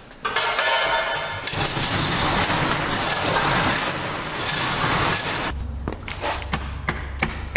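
Chain-operated steel roll-up door being raised by hand: the hoist chain clatters through its pulley and the steel slats rattle as they coil up, for about five seconds, then a lower rumble with a few knocks.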